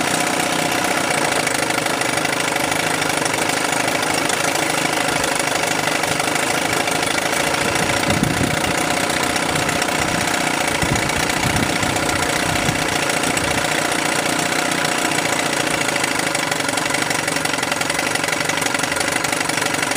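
1988 Sears Gamefisher 9.9 hp outboard, a Force/Chrysler twin-cylinder two-stroke, running steadily with its lower unit in a test tank of water. It is pumping cooling water through its newly replaced water pump impeller.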